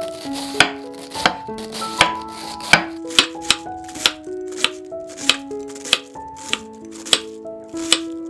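Chef's knife thinly shredding cabbage on a wooden cutting board, in quick crisp cuts about two to three a second, with background music.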